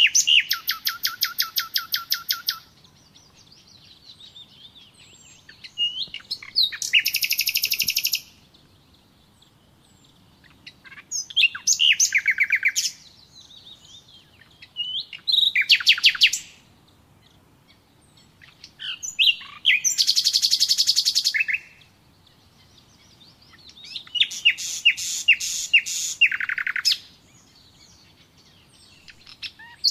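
Songbirds singing: six loud bursts of rapid trills, each two to three seconds long and coming about every four to five seconds, with fainter chirps in between.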